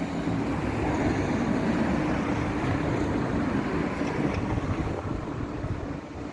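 Steady low rumble of street traffic with a faint hum, and wind buffeting the microphone.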